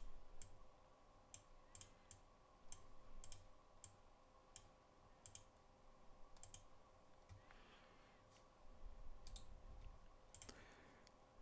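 Computer mouse buttons clicking now and then: about a dozen faint, short clicks at irregular intervals, over a faint steady hum.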